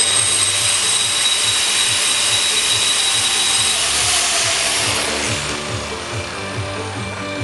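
Variable-speed angle grinder with a diamond cup wheel grinding the edge of a concrete planter: loud grinding noise over a steady high motor whine, which stops and winds down about five seconds in. Background music with a steady beat runs underneath.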